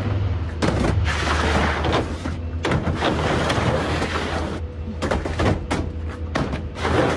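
Black plastic storage totes being lifted, set down, slid along a ribbed truck bedliner and stacked on one another: a series of irregular thuds and knocks with scraping between them.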